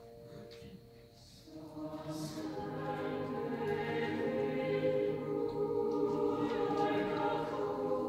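Mixed choir singing a cappella-style sustained chords. It enters softly about one and a half seconds in, after a single held instrumental note fades out, and swells steadily louder.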